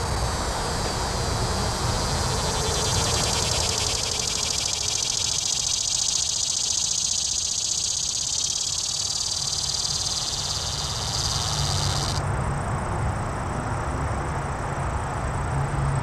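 Cicada singing: a high, steady buzzing drone with a fine rapid pulse in it, which cuts off abruptly about twelve seconds in. A low background rumble continues underneath.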